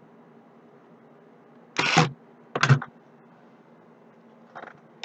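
Opened Dell laptop chassis being handled and shifted on a rubber work mat: two short scraping clatters about a second apart, then a faint knock near the end.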